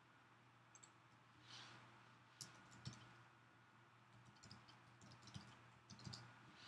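Near silence with faint, scattered clicks of computer keyboard typing and mouse clicks over a low, steady hum.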